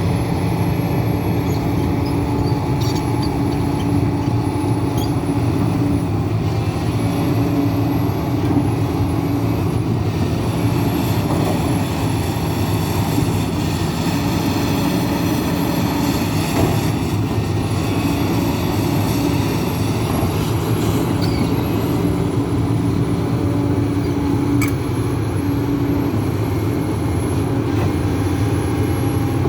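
Hidromek 410LC tracked excavator's diesel engine and hydraulics running steadily at work, the engine note shifting every few seconds, with a thin high whine over it.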